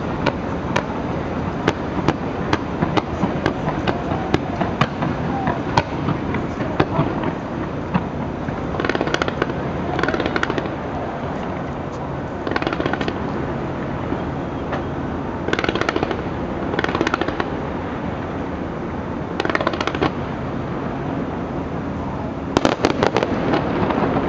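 Fireworks fired from the CN Tower: rapid bangs and crackling from the shells. It is dense and continuous for the first several seconds, then comes in bursts every few seconds.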